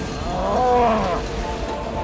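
A cow mooing once in a long arched call, over a steady low rumble of tornado wind.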